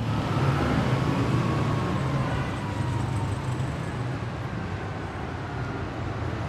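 City street traffic: a steady rumble of vehicle engines, with a faint tone that slowly falls in pitch as a vehicle passes.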